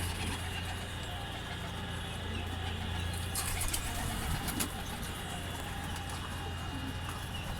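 Birds calling softly over a steady low hum, with a few faint clicks about halfway through.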